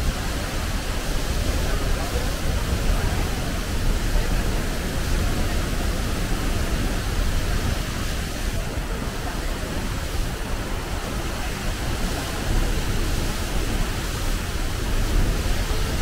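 Tall waterfall crashing into its plunge pool: a steady, unbroken rush of falling water.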